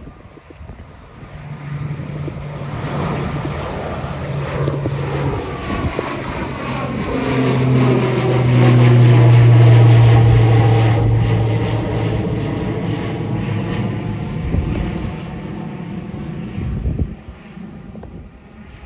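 ATR 72-600 turboprop airliner at takeoff power, its two Pratt & Whitney PW127 engines and propellers giving a low drone. The drone grows louder to a peak about halfway through, then fades as the aircraft passes and climbs away, dropping off sharply near the end.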